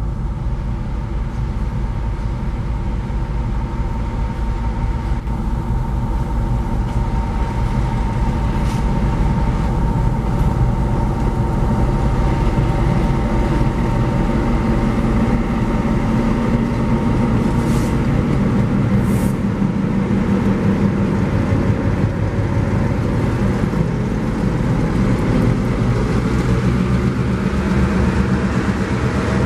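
Diesel engines of two freight locomotives, a GAIA unit and an ALCO RSD16, running as they pass close at low speed, with a steady whine that stops about two-thirds through. The sound grows a little louder near the end as the ALCO comes alongside.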